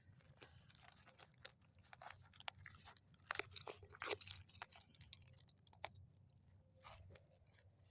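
Faint, irregular clicks and light knocks of small objects being handled.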